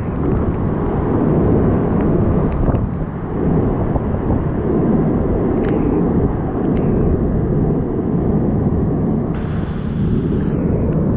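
Hurricane eyewall wind with driven rain, a loud, steady, deep rushing noise, with a few short sharp clicks about halfway through and more hiss in the last couple of seconds.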